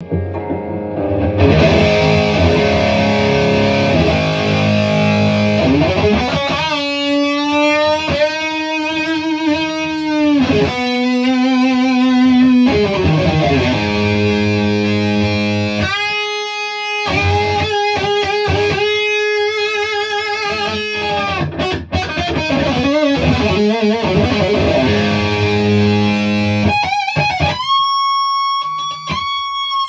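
Distorted electric guitar, a Jackson King V with a Dimebucker bridge pickup played through an Ampeg VL502 50-watt head. It opens with low, heavy riffing chords, then moves to long held lead notes with vibrato and bends, back to chords, and more held lead notes near the end.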